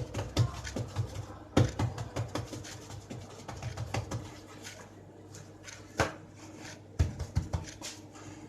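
Batbout dough being worked on a board with rapid, rhythmic soft thumps and clicks, about four a second, stopping about four seconds in. A few separate knocks follow.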